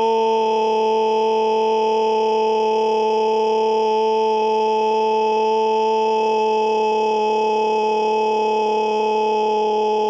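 A loud, long scream held at one steady pitch without a break.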